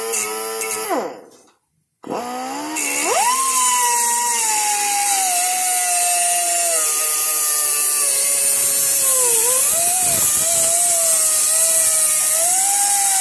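A high-speed cutoff wheel cutting a metal tube held in a vise, a loud high-pitched whine with hiss. It runs briefly, winds down and stops about a second in, then starts again and spins up. The pitch then drops and wavers as the wheel bites into the tube and throws sparks.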